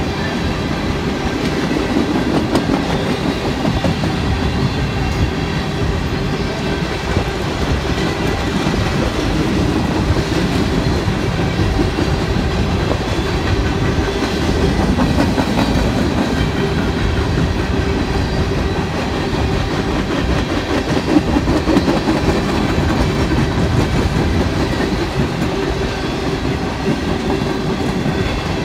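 Covered hopper cars of a freight train rolling past, the steel wheels clicking steadily over the rails.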